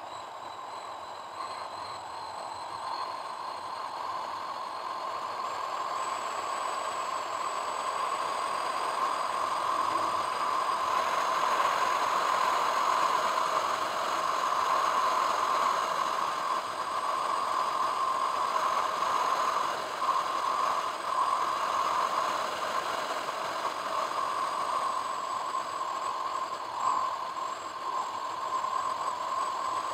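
A car driving along a paved road: steady road and engine noise that grows gradually louder over the first dozen seconds, then holds.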